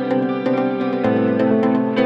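Instrumental background music: held chords over a steady ticking beat, the chord shifting about a second in.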